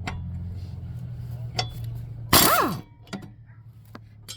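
Impact wrench loosening a mower's belt-bracket bolt: a brief loud burst of hammering about halfway through, then the motor winding down in a falling whine. A steady low hum runs under the first half.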